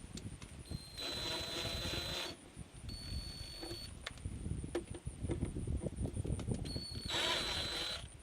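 Cordless drill/driver whirring in two short runs of about a second each, driving screws to mount a car speaker. A lighter spin comes between them, with knocks and handling thumps throughout.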